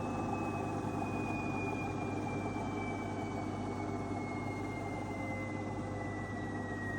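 AEG 8000 washing machine running, its drum motor whine falling slowly and steadily in pitch as the drum slows, over a steady low hum.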